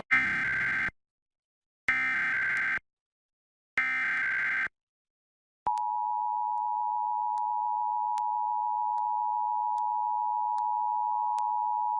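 Emergency Alert System tones: three short bursts of SAME header data tones, about a second apart, then, about a second after the last, the steady two-tone EAS attention signal starts and holds. Together they open a Required Monthly Test alert.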